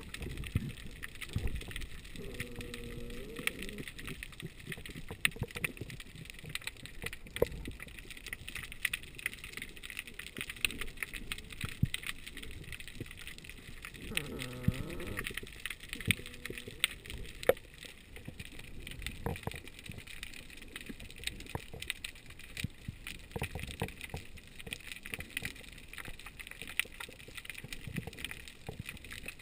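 Underwater sound picked up through a GoPro housing: a steady crackle of many small clicks over a hiss. Twice, about two seconds in and again about fourteen seconds in, a short wavering tone bends up and down.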